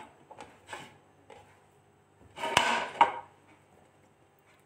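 Kitchen handling around a metal bowl of diced potatoes and chickpeas. There are a few faint taps, then one short clatter with a knock about two and a half seconds in.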